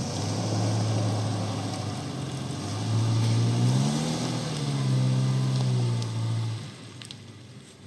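An off-road vehicle's engine runs under load, revving up about three seconds in, easing back, then dropping away near the end.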